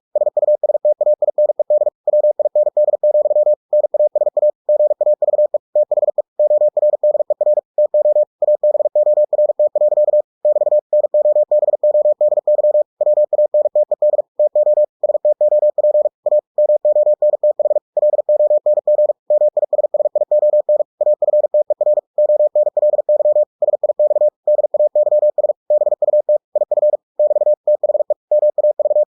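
Computer-generated Morse code (CW) sent at 45 words per minute: a single steady tone keyed on and off in very fast dits and dahs, with short breaks between words. It is spelling out the text of a novel as copying practice.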